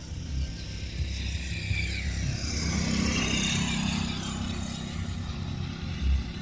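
A motor vehicle passing by, its noise swelling to a peak about three seconds in and then fading away.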